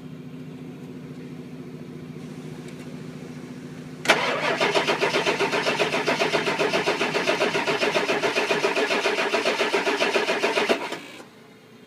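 Ford 7.3 Power Stroke V8 diesel being cranked cold by its starter: after a steady low hum, the starter kicks in about four seconds in and turns the engine over in an even rhythm for about seven seconds without it firing, then stops abruptly. The crank-no-start comes from a voltage drop to the PCM, which the mechanic traces to high resistance in the battery cable.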